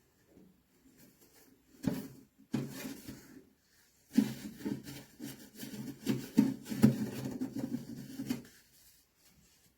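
Handling noises: scattered knocks followed by a few seconds of rubbing and scraping, as of objects being moved and handled in a small room.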